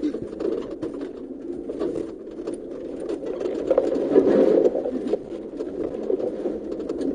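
Off-road 4x4 driving slowly over a rough dirt track: a low, steady engine drone with frequent knocks and rattles from the bumps, growing louder about halfway through.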